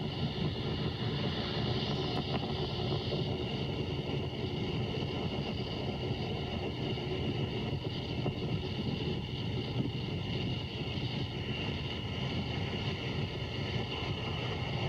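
Steady low rumble of the Falcon 9 rocket's first-stage engines in powered ascent, with a layer of hiss and no breaks or distinct events.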